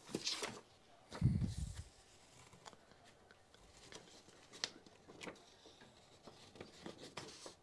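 Paper sheets rustling and crinkling as they are handled and lifted out of a cardboard box, with a dull thump about a second in and scattered light crinkles after.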